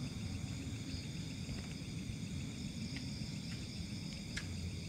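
Steady night chorus of crickets and other insects, several high-pitched trills layered together, over a low rumble.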